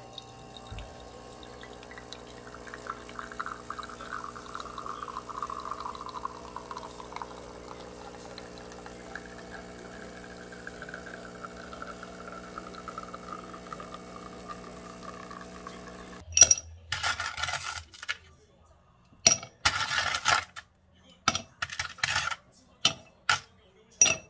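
De'Longhi bean-to-cup espresso machine running its pump as coffee streams into a stainless steel pitcher: a steady hum with a pouring sound that twice falls in pitch. About 16 seconds in it stops suddenly, and ice cubes drop one by one into a glass tumbler in a series of sharp clinks.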